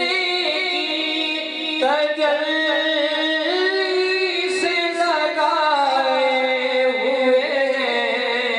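A man singing a devotional naat into a microphone, holding long, drawn-out notes that waver and glide slowly in pitch.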